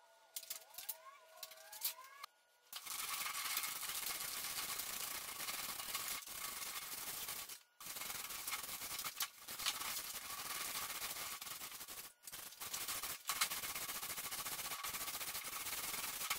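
A small paint roller spreading wet glue across an epoxy-primed metal sheet: a steady sticky rolling noise in strokes, broken by short pauses as the roller changes direction. Before the rolling starts there are a few faint squeaks from the glue bottle being squeezed out.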